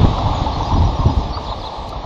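Wind gusting across an outdoor microphone: an uneven low rumble over a steady hiss, strongest in the first second and easing toward the end.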